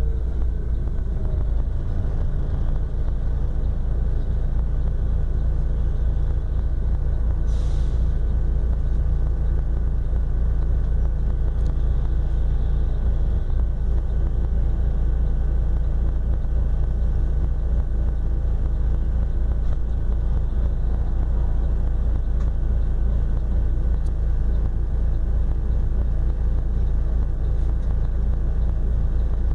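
Mercedes-Benz O-500RS coach's diesel engine heard from on board while driving, a steady low drone with road noise, its pitch easing down slightly at the start. A short hiss about seven and a half seconds in.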